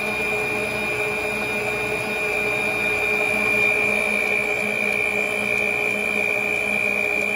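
Electric stand mixer running steadily at speed, its whisk whipping body butter in a stainless-steel bowl. It gives a constant motor whine with a steady high tone over a lower hum.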